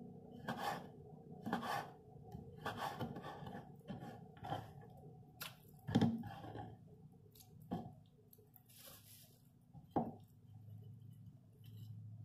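Kitchen knife cutting on a wooden cutting board: irregular slicing strokes and knocks of the blade on the board, the loudest thump about six seconds in, with a short rustle just before nine seconds.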